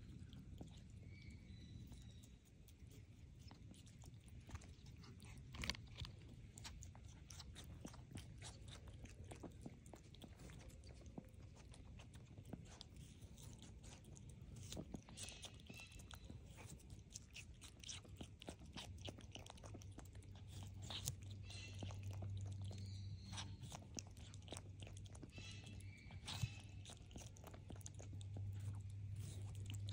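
A skunk chewing watermelon close up, with a faint run of small wet clicks and crunches from its mouth.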